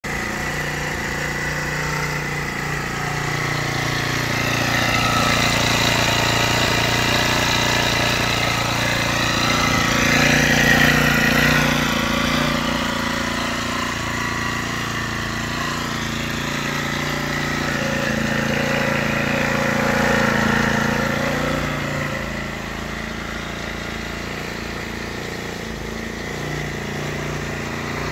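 Honda GX50 50cc four-stroke engine of a friction-drive motorized bicycle running at idle, its pitch and loudness rising and falling twice.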